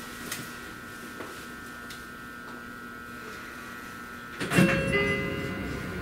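Sotetsu 20000 series electric train standing at a platform with a steady electrical whine, then about four and a half seconds in a loud clatter with a short door chime as the passenger sliding doors work.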